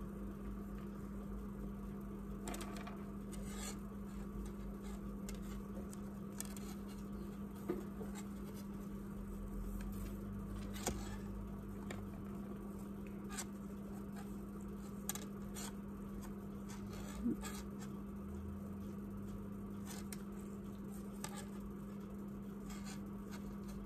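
Quiet handling sounds of ribbon being tied onto a thin craft stick: scattered faint taps and light rustles, about a dozen in all, over a steady low hum.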